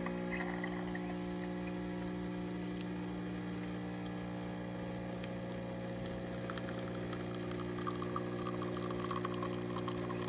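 DeLonghi fully automatic espresso machine's water pump running with a steady hum as it brews, pushing water through the coffee. Faint trickling patter comes in from about the middle on as the coffee runs into the cup.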